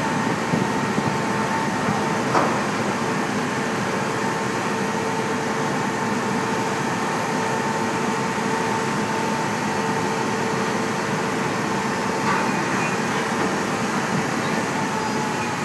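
Steady hum of a car ferry's onboard machinery, with a constant whine in two pitches, while the ship sits at the dock. A short knock comes about two seconds in and a fainter one around twelve seconds.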